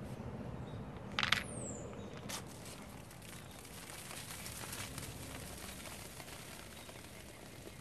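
Mentos dropped into a bottle of regular 7-Up, with a brief sharp clatter about a second in. Then the soda foams up and sprays out of the bottle neck with a steady fizzing, crackling hiss.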